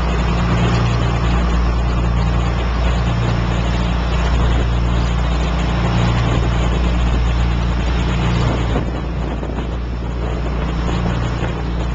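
Deep-sea fishing boat's engine running steadily while under way, a low drone with a constant rushing noise over it.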